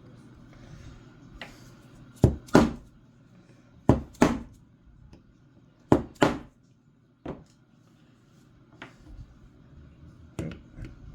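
Sharp metal taps seating the trigger pin in an old-style Marlin Model 60 trigger group: three pairs of quick strikes about two seconds apart, then a single knock and a few lighter taps near the end.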